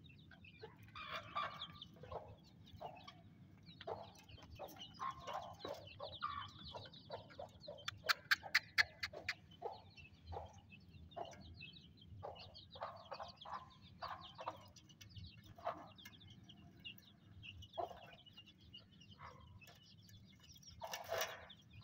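Aseel hen clucking among her chicks' continual high peeping, with a quick run of sharp taps about eight seconds in and a louder call near the end.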